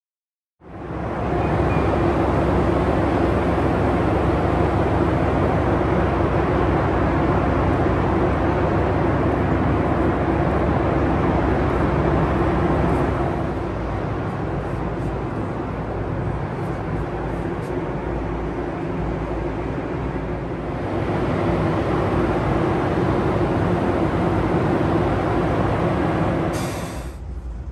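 Passenger train running: a steady rumble with a low hum. It drops in level about halfway through, comes back up later, then falls away near the end after a short hiss.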